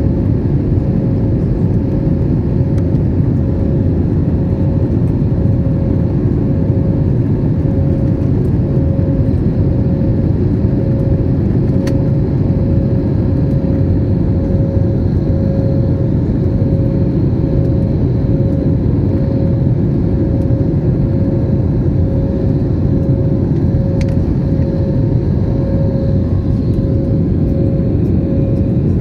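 Passenger jet cabin noise in flight: a steady, loud roar of the engines and rushing air, with a steady mid-pitched hum that pulses faintly and evenly.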